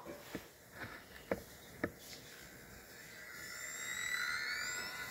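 Three light taps, then the Facebook Messenger thumbs-up button held down: a rising tone that swells for about two seconds while the like grows, before it is sent.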